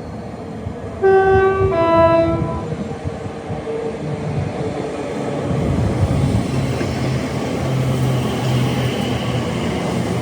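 Train horn sounding two notes, a higher one about a second in and then a lower one, followed by the train running past with steady rail noise and a low hum.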